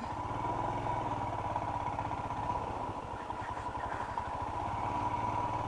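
Motorcycle engine running steadily at low revs, with a thin steady whine above it.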